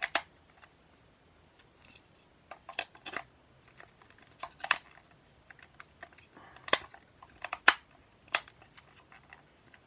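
Scattered clicks and knocks of small hard objects being handled, about a dozen at uneven intervals, a few louder than the rest.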